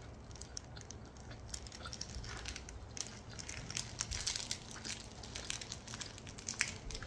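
Eating a salmon onigiri: a scatter of small crackles and crunches from chewing the rice ball in its nori wrap, with the plastic wrapper crinkling in the hands.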